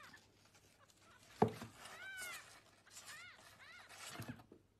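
A young kitten mewing faintly in short, high, arching cries, several times, with a single knock about a second and a half in.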